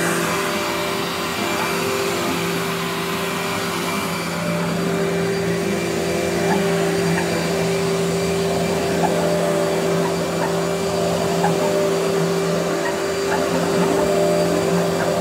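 Dirt Devil Featherlight Bagless lightweight upright vacuum cleaner running steadily across the floor: a constant motor hum and whine over a rush of air, with faint scattered ticks.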